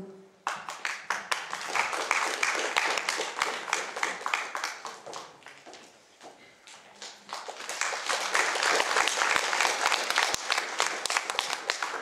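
An audience applauding. The clapping dies away about five seconds in, then swells again and carries on.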